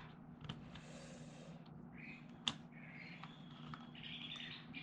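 Faint handling of jigsaw puzzle pieces: small scattered clicks and taps, with one sharper click about halfway through.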